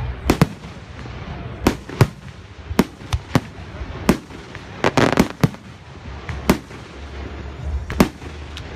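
Aerial fireworks shells bursting: about a dozen sharp bangs at irregular intervals, with a quick run of several together about five seconds in.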